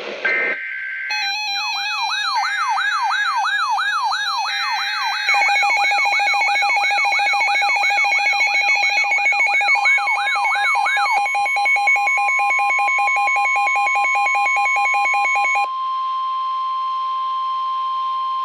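Weather-radio alert tones for a Severe Thunderstorm Warning. Three short bursts of SAME header data tones are overlaid by a rapidly repeating electronic siren wail and fast alternating beeps. About ten seconds in, the steady 1050 Hz Warning Alarm Tone starts, and after about fifteen seconds it sounds alone.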